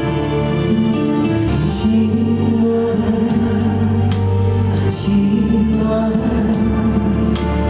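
A slow ballad trot song played live, with long held notes.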